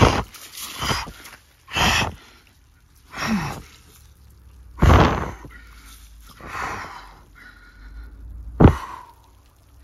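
A person breathing hard in ice-cold water: a sharp, forceful breath every second or two, the body's reaction to cold shock. About three seconds in, one breath comes out as a short falling groan.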